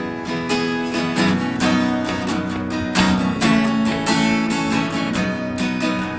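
Strummed acoustic guitar playing a song's opening, with chords struck in a steady rhythm.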